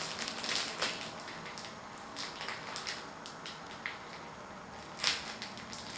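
Clear plastic meat packaging crinkling and rustling in bursts as a raw beef cut is handled and pressed with the fingers, with a louder rustle about five seconds in.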